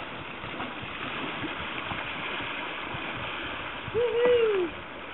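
River water rushing steadily over a shallow riffle, with paddle splashes. About four seconds in, a person gives one short, loud call that rises and then falls in pitch.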